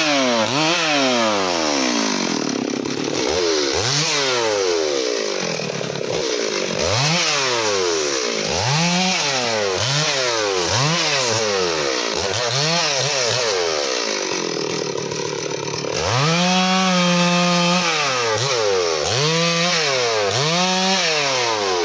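Stihl MS 382 two-stroke chainsaw revved up and let back to idle over and over, about once a second, while limbing a felled teak trunk. After a short stretch at idle it is held at full revs for about two seconds, then blipped twice more near the end.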